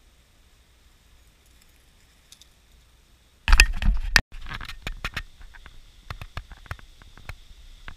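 Fingers grabbing and handling an action camera, a loud rubbing and knocking on its case for under a second about three and a half seconds in, cut off abruptly. Then irregular light clicks and taps as the camera is carried along.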